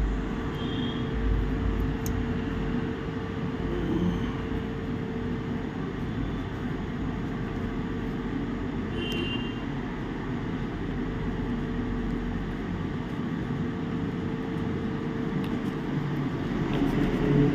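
Steady machine noise: an even rush with a constant humming tone.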